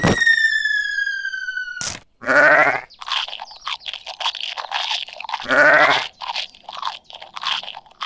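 Dubbed cartoon sound effects: a sharp hit and a falling whistle lasting nearly two seconds, ending in a click. Then a sheep bleats twice, with crunchy chewing sounds between and after the bleats.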